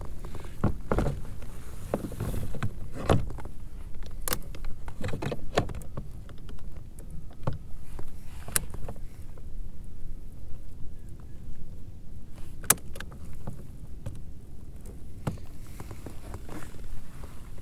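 Scattered knocks and clicks of gear being handled in a fishing kayak, most of them in the first six seconds, over a steady low rumble.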